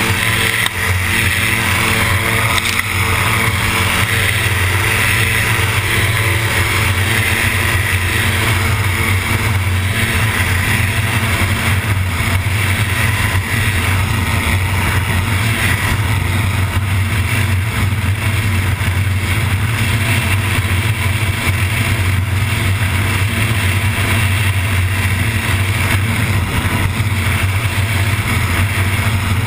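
MTO Sport gyroplane's engine and pusher propeller running steadily, with rushing wind, heard from a camera dangling loose beneath the tail on its safety strap.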